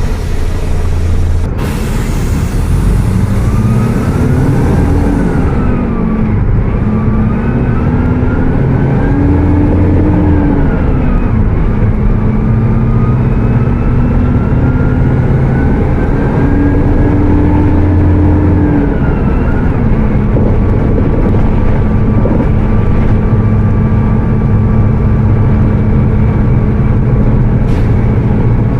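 Mercedes-Benz OF 1722M bus's diesel engine pulling away at high revs. It revs up and drops back at each gear change about four times, then settles to a steady cruising note. A sharp click comes about a second and a half in.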